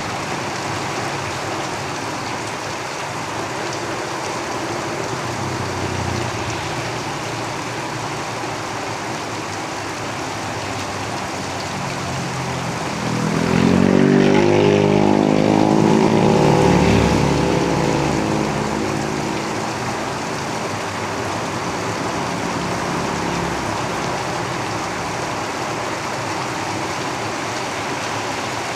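Steady rain drumming on a roof. About halfway through, a motor vehicle passes on the road, its engine rising in level for a few seconds with its pitch shifting, then fading back under the rain.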